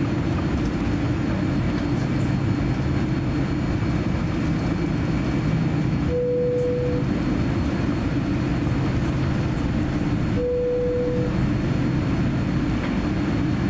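Cabin noise of a Boeing 787-9 airliner taxiing: a steady low rumble. Two short steady tones, each under a second, sound about six and ten seconds in.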